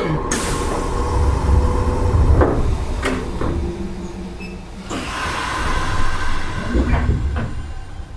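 Nishitetsu 5000 series electric train heard from inside while running: a steady low rumble of wheels on rail. There is a sharp knock right at the start and several shorter knocks after it.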